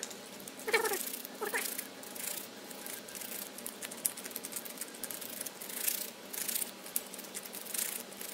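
Gloved hands kneading sticky two-part epoxy molding clay: irregular wet crackling and rubbing of nitrile gloves on the putty. Two short squeaky sounds come in the first two seconds.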